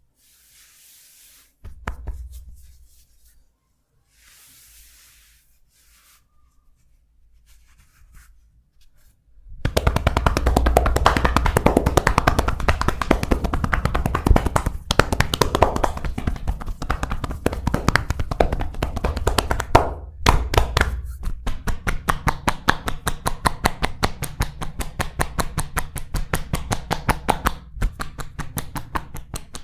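Rapid, rhythmic percussive massage strokes on the body: about ten seconds in, a dense run of fast hand strikes begins, with a deep thud under each. From about twenty seconds in they change to a fast, even train of sharp taps.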